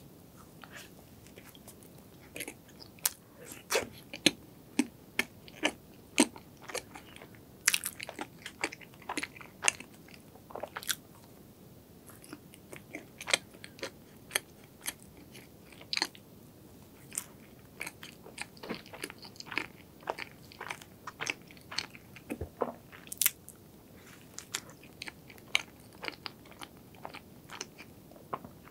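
Close-miked eating: a bite into a strawberry cream-filled bun, then chewing, heard as many short, sharp mouth clicks at an uneven pace.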